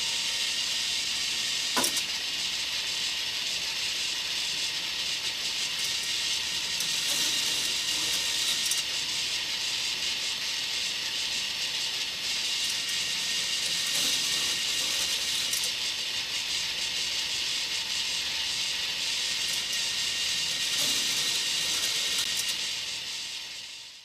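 K'nex Double Doom roller coaster running: its battery-motor chain lift and plastic track give a steady, fine rattle. There is a sharp click about two seconds in, and the sound swells about every seven seconds.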